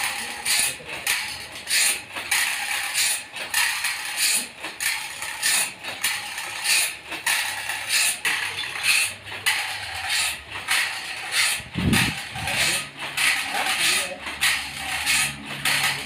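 Sawmill machinery clicking and clattering in a steady rhythm, about two to three clicks a second, with a single dull thump about twelve seconds in.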